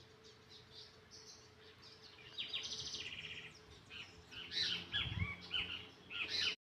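Small songbirds chirping and singing, with a fast trill of rapidly repeated notes about two and a half seconds in and a run of short, varied chirps near the end. The sound cuts off abruptly.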